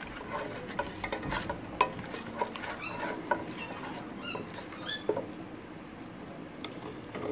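Wooden spoon stirring and scraping against the bottom of an aluminium pot as ground spices fry in hot oil for a kadhi base, with a light sizzle and scattered clicks. A few short, high squeaks come about three seconds in and again near five seconds.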